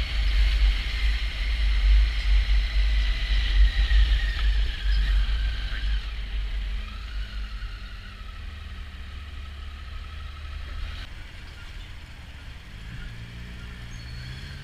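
Motorcycle riding, heard from the rider's helmet with heavy wind rumble on the microphone. A thin engine whine falls slowly in pitch as the bike slows, and the sound drops to a quieter ride after about six seconds. It changes abruptly near eleven seconds.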